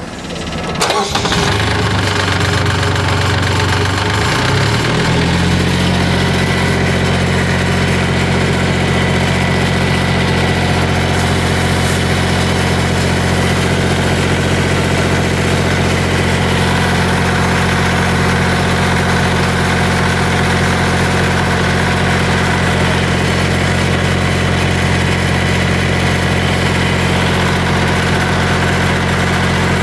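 Brush truck's fire pump engine running. It comes in about a second in, shifts in pitch for a few seconds, then holds a steady speed.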